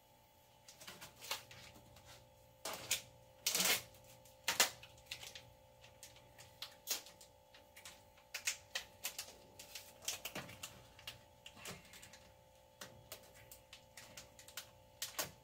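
Irregular clicks and crinkles of a plastic tofu pack being handled and opened, with the sharpest snaps about three and a half and four and a half seconds in.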